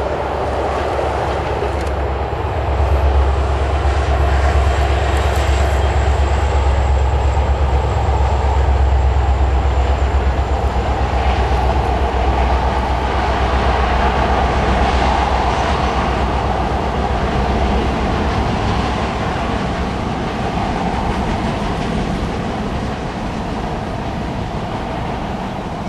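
Montana Rail Link diesel freight locomotives pulling a train of tank cars past at close range. The engines' deep drone swells a couple of seconds in and fades after about 18 seconds. The rumble and clatter of the tank cars' wheels on the rails carries on after it.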